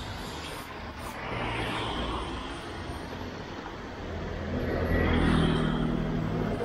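Road traffic on a rain-wet street: tyre hiss of passing cars, then a motor vehicle's engine coming close and getting louder from about two-thirds of the way through.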